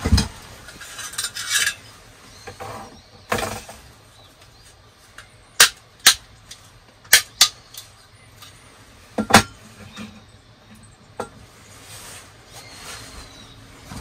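Small metal folding pocket stove being handled and unfolded: a run of sharp metal clicks and clinks through the middle, then a louder knock about two-thirds in.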